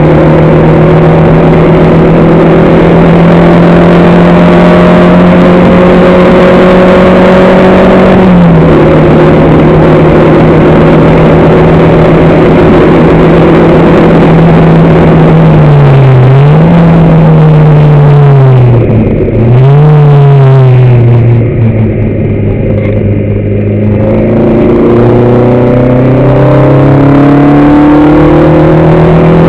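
Car engine heard on board at high revs, very loud: its pitch drops sharply about eight seconds in as it shifts up. Just past halfway the revs dip and jump back up twice, as with downshifts under braking. After a few seconds running lower and quieter, the engine climbs steadily as it accelerates again near the end.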